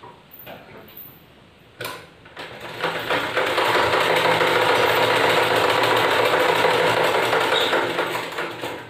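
Merritt sewing machine stitching a seam: after a few soft knocks, it starts about three seconds in, runs at a steady fast pace for about five seconds, and stops near the end.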